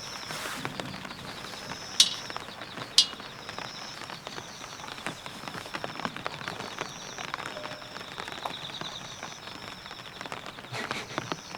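Rain falling steadily on a tent, a haze of many small drop ticks. Two louder sharp clicks come about two and three seconds in.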